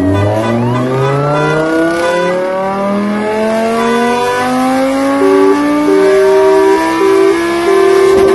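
Car engine accelerating, its pitch rising steadily throughout. Over the second half a steady tone cuts in and out several times.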